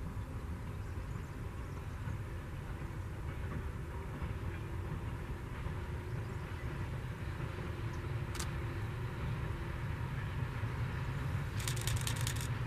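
Distant ČSD class 751 diesel locomotive hauling a local freight train, a low rumble that grows slowly louder as it approaches. One sharp click about two thirds of the way in and a quick run of clicks near the end.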